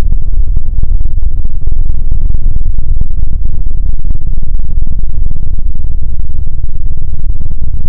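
A loud sound effect slowed far down into a dense, distorted low rumble at near full volume, with no clear pitch or rhythm.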